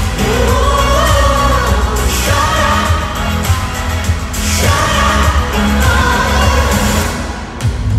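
Male pop singer singing live into a microphone over a loud backing track with heavy bass; the music dips briefly near the end.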